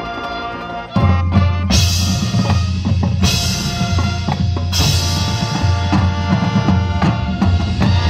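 High-school marching band playing its show. A quieter passage with the front ensemble's keyboards gives way, about a second in, to a loud full-band entry with heavy drums and low sustained notes.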